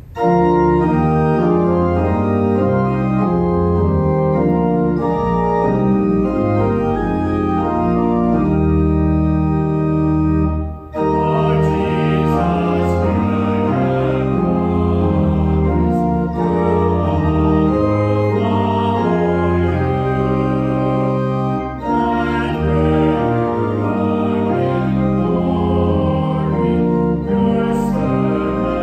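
Organ playing music in full sustained chords over a moving bass line, starting abruptly at the opening, with a brief break about eleven seconds in.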